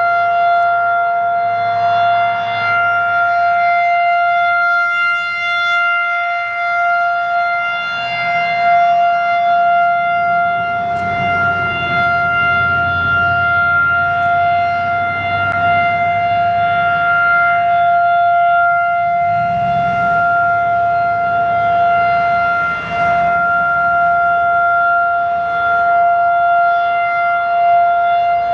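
Federal Signal 2001 outdoor warning siren sounding its test: one steady, unbroken tone with strong overtones, held at a fixed pitch with no rise or fall.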